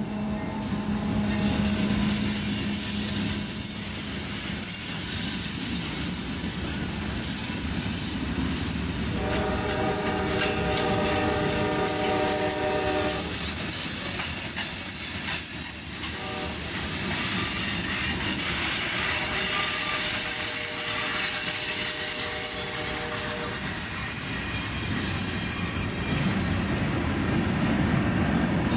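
Freight train cars rolling past close by, with a steady rumble and clatter of wheels on the rails. The locomotive's horn sounds from up the line for about four seconds, starting about nine seconds in, and a fainter tone comes again a little past twenty seconds, while a thin high wheel squeal runs through the later part.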